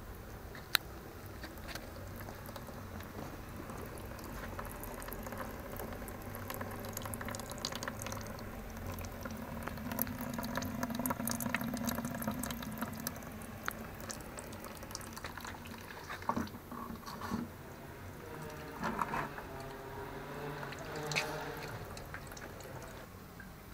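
Melted beeswax trickling and dripping from the spout of a homemade steam wax-melter drum into a bucket. A few knocks and handling noises come near the end.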